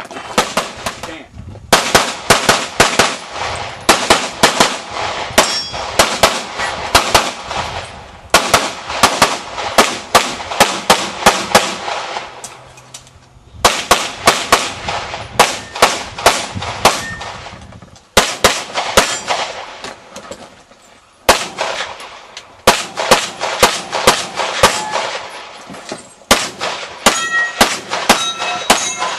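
Rapid strings of pistol shots, several a second, in runs of a few seconds broken by brief pauses. Near the end, struck steel targets ring after hits.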